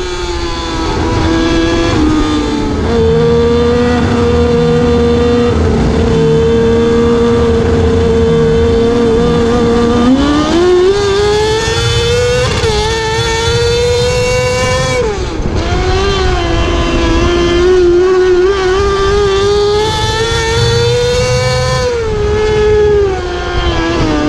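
Onboard sound of a 600 micro sprint car's fuel-injected Yamaha R6 inline-four motorcycle engine at racing revs. The engine note climbs and drops off several times as the driver gets on and off the throttle around the oval.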